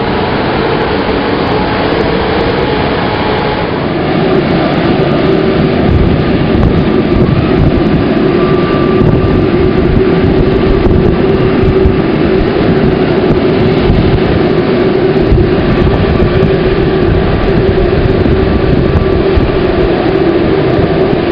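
Airbus A380 jet engines running: a steady rumble with a whine on top, growing louder about four seconds in.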